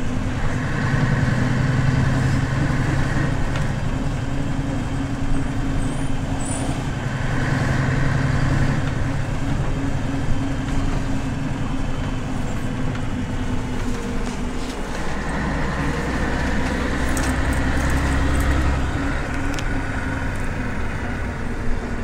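Scania CN113CLL bus under way, heard from inside the passenger cabin: its Scania DSC 11.71 straight-six turbodiesel runs steadily with road noise, and the engine note changes several times as it pulls and eases off.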